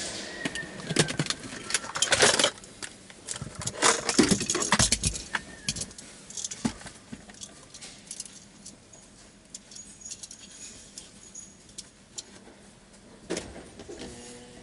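Clicking, rattling and jingling of small hard objects being handled inside a car, busiest over the first five seconds, then a few scattered clicks and one louder knock near the end.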